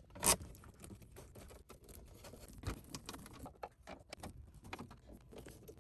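Hand screwdriver turning screws into a car stereo's metal mounting bracket: a run of small, irregular clicks and taps of the tool on the screws and metal, one sharper click about a third of a second in.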